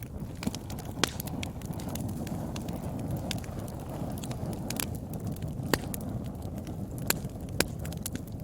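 Wood fire burning: a steady low rumble with frequent small crackles and four sharp pops, one about a second in and three in the last three seconds.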